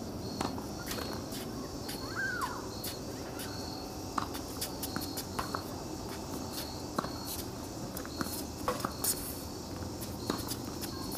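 Crickets chirping in a steady, evenly pulsed rhythm, over sharp knocks of a tennis ball struck by rackets and bouncing on a hard court during a rally.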